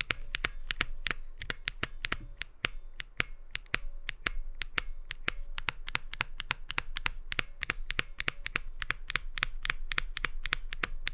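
Typing on a custom mechanical keyboard (IDOBAO ID80 with Holy Panda tactile switches and SA keycaps): a steady run of keystroke clacks, about four or five a second. The builder calls the stock Holy Panda springs awful; with them, a few switches pinged.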